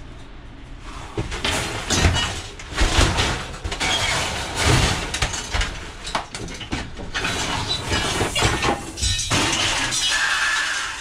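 Light scrap metal being thrown out of the back of a van onto a scrap pile: a quick run of clanking, rattling crashes, starting about a second in.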